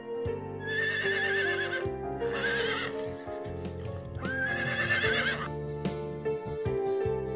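Horse whinnying three times, each a wavering high call lasting about a second, over soft keyboard music.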